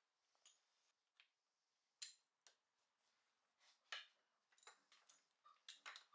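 Faint, irregular clicks and light metallic taps, a dozen or so spread over a few seconds, from small metal parts or hand tools being handled.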